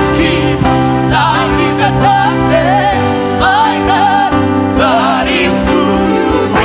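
Gospel worship music: a singer improvising melismatic vocal runs over sustained held chords, with no words made out.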